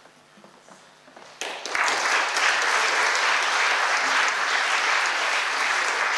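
Audience applauding. The clapping breaks out suddenly about a second and a half in and holds steady.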